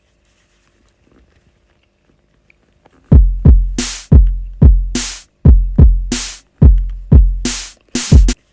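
Electronic drum-machine beat: deep booming kicks with a sharp snare-like hit about once a second, starting about three seconds in and stopping suddenly near the end.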